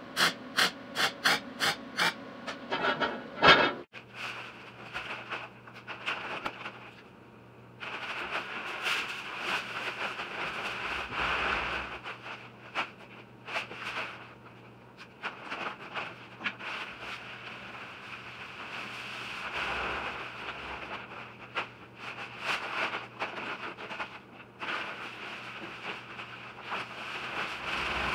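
Welding on a steel tank's end in short regular pulses, about three a second, cutting off suddenly about four seconds in. After that, Quikrete dry concrete mix is poured from paper bags into the steel tank through a cut opening: a hissing pour with rustling and scraping of the bags.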